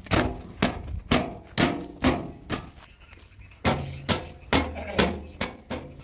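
A cloth slapped repeatedly against a tractor's bonnet to beat the dust off it: sharp slaps about two a second, with a pause of about a second near the middle.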